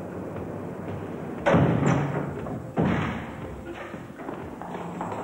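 Two heavy bangs on a lift door, about a second and a half apart, each ringing out and fading over about a second.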